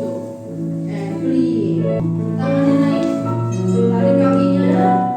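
Background music: sustained keyboard chords over a bass line, with a soft bell-like melody on top.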